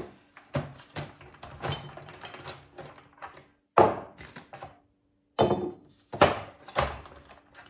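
Kitchen items being shifted and set down on a counter: a run of knocks and clunks, with several loud thuds in the second half.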